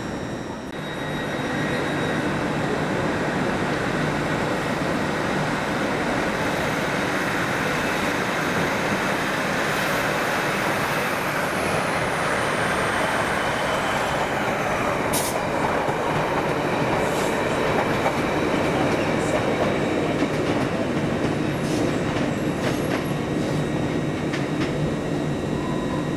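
A train running in a station: a steady rumble, with a high whine that falls in pitch about halfway through, then scattered clicks and knocks.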